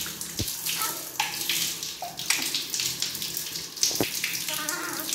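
Tap water running and splashing over cupped hands and a baby monkey being rinsed under it, with a couple of short knocks.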